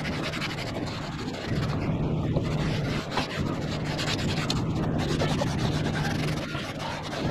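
Microfiber towel rubbing back and forth over a hard plastic engine cover, a continuous scrubbing rasp as the trim conditioner is wiped on, over a low steady hum.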